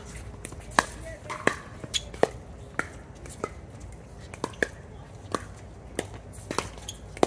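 Pickleball rally: hard paddles hitting the plastic ball, about a dozen sharp pops at uneven intervals of half a second to a second.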